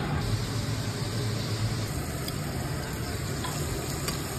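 Barracuda fillets frying in oil in a pan, a steady sizzle under a steady low hum, with a couple of faint ticks about two and four seconds in.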